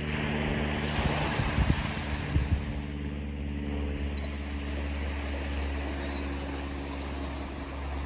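Small waves washing onto a pebble beach, with a steady low engine-like hum underneath and wind thumping on the microphone in the first couple of seconds. Two faint short bird chirps, about four and six seconds in.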